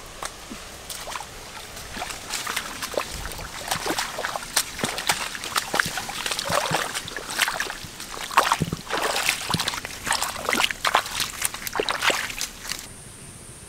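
Water splashing and sloshing in quick, irregular splashes, as when someone works by hand in shallow flood water; the splashing stops abruptly near the end.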